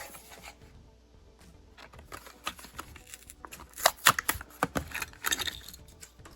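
Plastic and cardboard packaging of a diecast toy car being handled and opened: irregular crackles and clicks, busiest and loudest about four seconds in.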